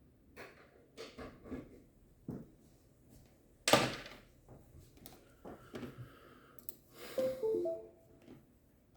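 Objects being handled and set down in a small room: scattered knocks and clicks, with one loud thump a little under four seconds in. About seven seconds in, a short run of brief electronic tones stepping in pitch sounds among the clatter.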